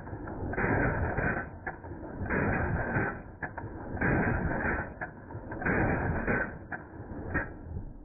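Slowed-down gunfire from a Century Arms C39V2 AK-pattern rifle in 7.62×39 mm as the magazine is emptied. Each shot is stretched into a blast of noise about a second long, about five of them roughly a second and a half apart, with short sharp clicks between them. The last shot comes shortly before the end.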